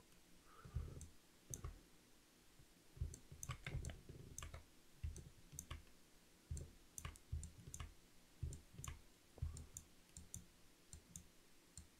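Faint, irregular clicking of a computer mouse, several clicks a second at times, some with a soft low knock beneath them.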